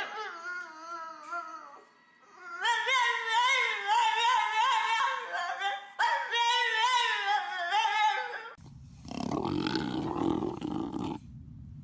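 A dog howling in long, wavering calls that slide up and down in pitch, with a short gap about two seconds in. Near the end the howling stops and a couple of seconds of harsh noise follow.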